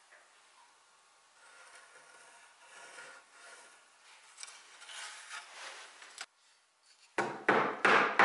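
Pencil scratching short strokes across the wooden chair arm, faint and repeated. Near the end, a much louder run of sharp knocks and scraping starts as a chisel is set into the marked line.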